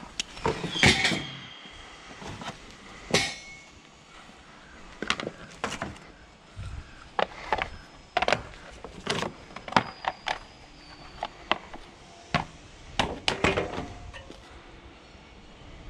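Ratchet tie-down straps and the trailer's side fittings being handled by hand: a string of irregular sharp metallic clanks and clicks, some with a short ring, the loudest about a second in and again about three seconds in.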